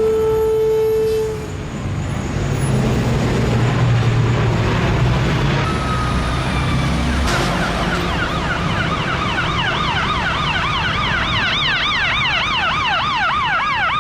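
Street traffic rumbling past, with a steady vehicle horn note that cuts off about a second in. From about halfway an emergency vehicle siren sounds in fast, even up-and-down yelp cycles, a few per second.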